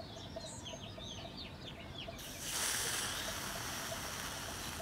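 Small birds chirping, then about two seconds in an aerosol can of freeze spray starts a long, steady hiss onto a diode, chilling it to test it. The cold is meant to make the suspect diode, which reads open when warm, conduct again and confirm it as the TV's intermittent fault.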